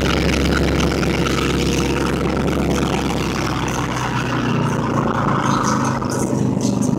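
1984 Corvette's 5.7-litre V8 running at high revs under load during a burnout, heard from inside the cabin. The engine note shifts about four seconds in.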